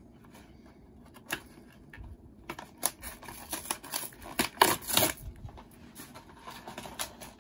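Hands handling trading-card packaging: rustling and scattered light clicks as spent booster pack wrappers are cleared away and a cardboard pin collection box is opened. The handling is busiest about four to five seconds in.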